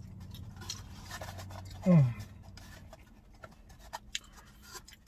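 Takeout food packaging being handled, with light crinkling and scratching, and one short falling "mmm" from a man eating about two seconds in. A steady low hum underneath stops about three seconds in.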